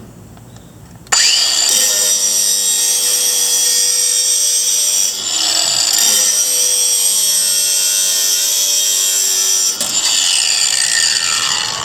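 Cordless Ryobi ONE+ angle grinder with a grinding disc, sharpening a steel lawn mower blade. The motor starts suddenly about a second in and runs steadily with a high grinding hiss, then it is switched off near the end and its whine falls as the disc spins down.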